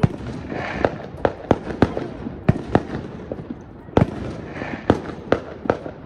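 Fireworks and firecrackers going off: about fifteen sharp bangs at irregular intervals, some loud and close, others softer, several ringing briefly.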